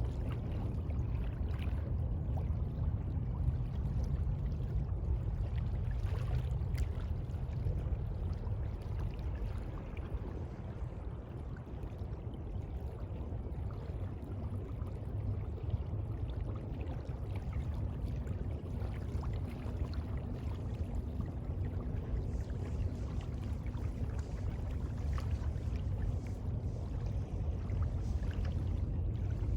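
The sea: a steady, deep rush of water, with faint scattered ticks over it.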